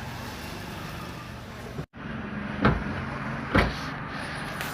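A car engine idling with a steady hum, and two short, dull thumps about a second apart past the middle.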